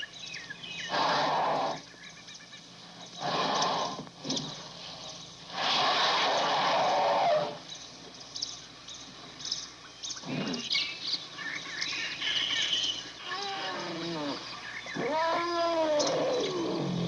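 Elephant trumpeting: three loud, harsh blasts in the first seven seconds and a shorter one near the middle, then several pitched calls that swell and fall near the end. Birds chirp faintly in the background.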